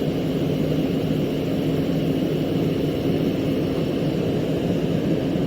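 Heavy diesel engine of an excavator running steadily at a constant speed, a low even drone.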